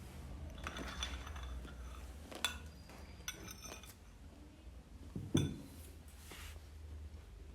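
Spoon clicking and scraping against an ice cream container during eating, with one louder knock about five seconds in.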